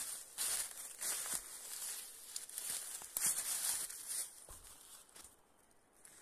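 Footsteps crunching and scuffing through dry leaf litter on a steep slope, irregular steps that die down near the end.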